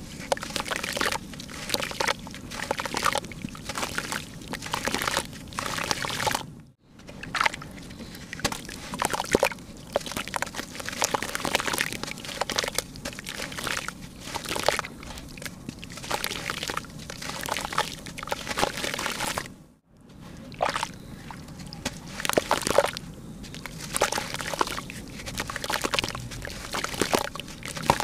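Wet red dirt lumps crumbled and squeezed by hand, the crumbs splashing and sloshing into a tub of water in quick irregular crackles. The sound cuts out briefly twice.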